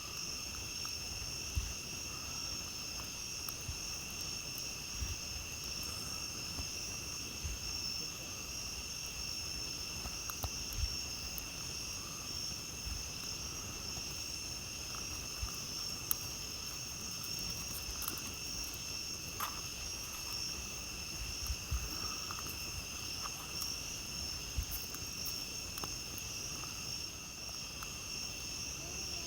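Steady chorus of night insects, two high pitches held without a break, over a campfire's scattered crackles and small pops.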